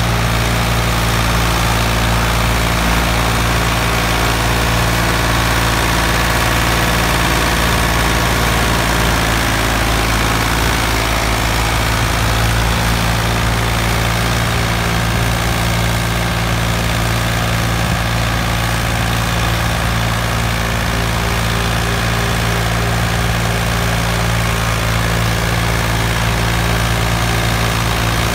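Ford 4600 tractor's three-cylinder diesel engine running steadily under load as it pulls a heavily overloaded sugarcane trolley, with an even hiss of road and wind noise over it.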